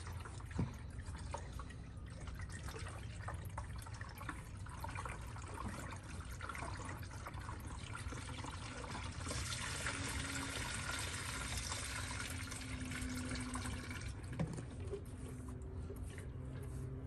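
Premix coolant pouring from a jug into a plastic no-spill funnel on the coolant reservoir, a steady pour that runs heavier for a few seconds in the middle, refilling the cooling system after a flush. A light knock sounds about half a second in.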